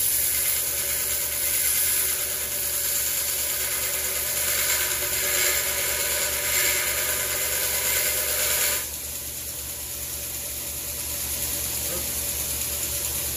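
Small electric shop tool motor running steadily. About nine seconds in it drops suddenly to a quieter, lower running. The tool is most likely being used to clean the keyway on the chainsaw crankshaft.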